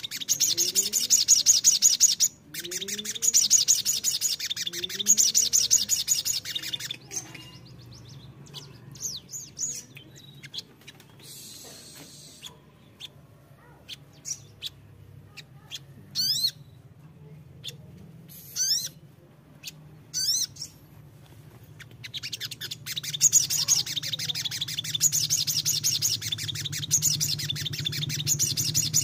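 Sunbird ('sogon') singing: a fast, high-pitched chattering trill for the first seven seconds or so and again over the last six, with a few short, sweeping whistled notes in the quieter middle stretch.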